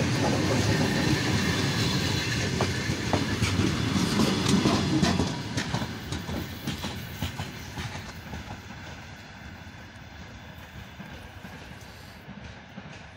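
Passenger train passing close by, its wheels rumbling and clicking over the rail joints. About five seconds in, the last car goes past and the sound drops, then fades steadily as the train moves away.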